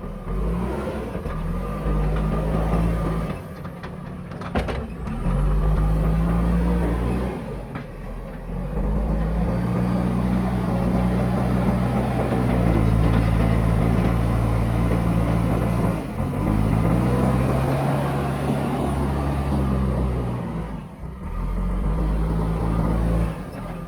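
Diesel engine of a JCB backhoe loader working hard, revving up and settling back again and again as the hydraulics dig and lift. A few sharp knocks come in about four seconds in.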